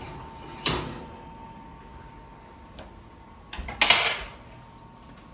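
Hot metal mini muffin pan, just taken from the oven, clattering as it is handled and set down: a sharp clank under a second in, then a louder, longer rattling clatter about four seconds in.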